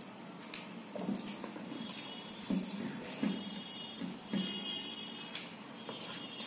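Wet squelching and clicking as bare fingers mix rice and curry on a steel thali and the man eats, with chewing and lip smacks. The sounds come as a series of short, separate smacks about every half second to a second.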